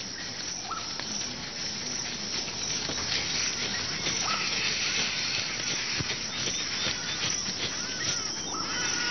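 Outdoor nature ambience: a dense, steady chirring of insects with a few short high chirps now and then, slowly getting louder.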